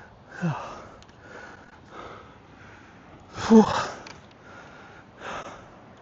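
A man's short wordless vocal sounds and breaths: a sigh with a falling pitch about half a second in, a louder exclamation about three and a half seconds in, and a weaker one near the end, in frustration at a lost fish.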